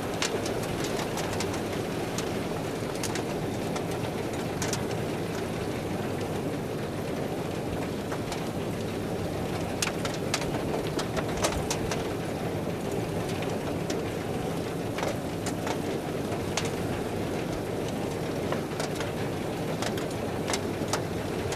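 Tractor-drawn Grimme potato harvester running steadily, its conveyors rattling, with scattered sharp clicks of potatoes and clods knocking together.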